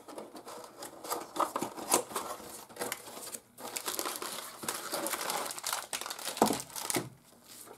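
A cardboard box being opened by hand and a plastic-wrapped UV LED light pulled out of it: irregular crinkling of the plastic wrap and scraping of cardboard, with a short lull about three and a half seconds in.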